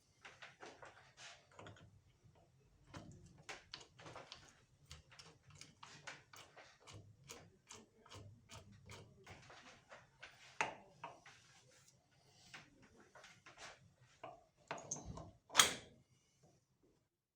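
Irregular clicks, taps and knocks of metal starter-motor parts and hand tools being handled and fitted together on a workbench, with a louder knock about fifteen seconds in.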